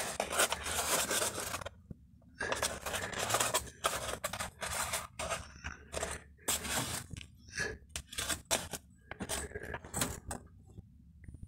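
Cardboard egg trays scraping and rustling against the ceiling in irregular bursts as they are pressed and slid into place.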